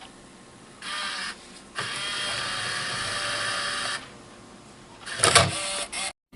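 Video cassette machine's mechanism whirring in two steady stretches, the second about two seconds long. A short loud clatter follows near the end.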